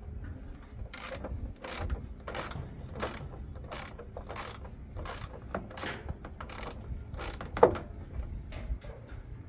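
Ratcheting hand tool clicking in repeated, evenly spaced strokes while undoing the screws on a washing machine drum, with a louder clack and a brief squeak near the end.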